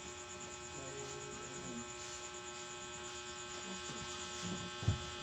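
Steady electrical mains hum made of many fixed tones, with a single short low thump just before the end.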